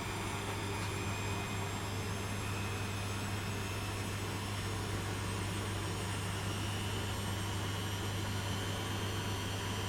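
Beko 6 kg 1500-spin washing machine running, a steady hum with a faint high whine that slowly rises in pitch.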